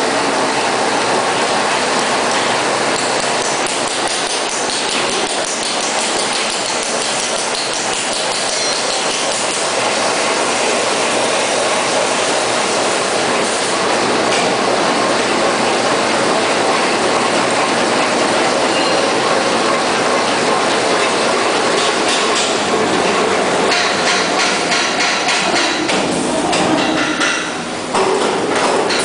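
Kitchen towel converting machine running: a loud, steady mechanical clatter of rollers and gearing as the paper web feeds off a jumbo parent roll.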